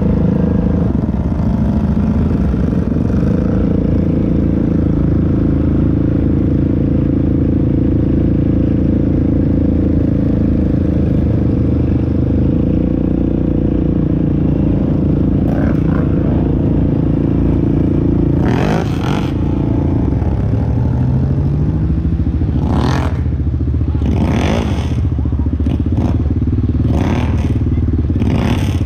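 ATV engine running steadily, rising briefly in pitch a little past the middle as it revs. Several short sharp knocks and clatters come over it in the last third.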